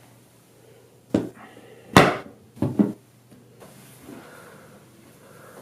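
Four hard knocks or thuds on wood, the loudest about two seconds in and the last two close together, against the quiet tone of a small room.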